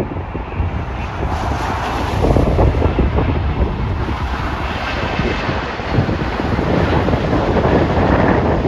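Wind buffeting the microphone in uneven gusts, with a steady rumbling background.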